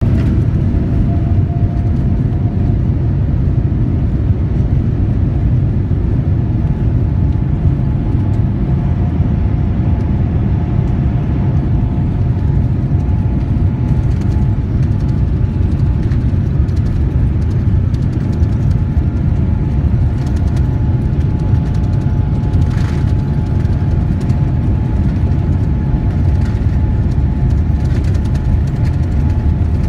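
Steady low rumble inside a Boeing 787's passenger cabin as the airliner taxis at low engine power, with a faint steady engine whine over it and an occasional light knock.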